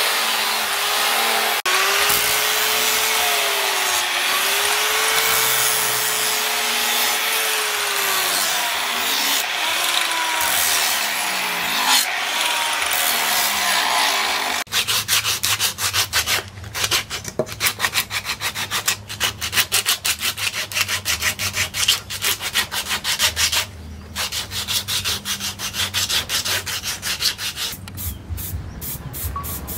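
Angle grinder grinding the leaf-spring steel blade of a machete, its motor whine wavering in pitch as it bears down on the metal. About halfway through the sound changes to a quick run of short grinding strokes over a low hum. Near the end come short hisses from a spray can.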